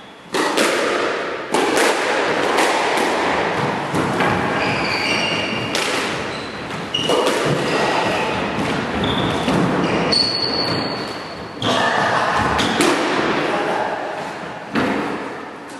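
Squash rally: the ball cracking off rackets and walls every second or two, each hit echoing around the enclosed court. Short shoe squeaks on the wooden floor come between the hits.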